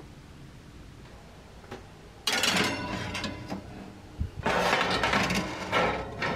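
Wire oven racks and metal baking trays rattling and scraping as the trays are slid into an oven. There are two spells of clatter, the first starting about two seconds in and the second about four and a half seconds in.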